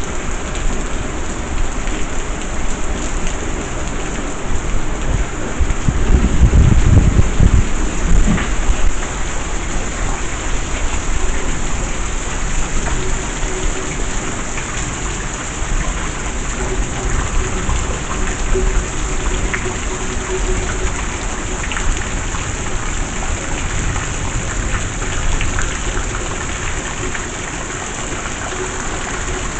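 Heavy rain pouring steadily, with a louder deep low rumble swelling for a couple of seconds about six seconds in.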